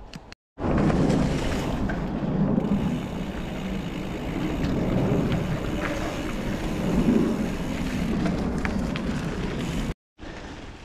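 Wind rumbling on the camera microphone while the mountain bike rides along the trail, a loud steady low rush with a few faint clicks and rattles. It starts suddenly about half a second in and cuts off abruptly just before the end.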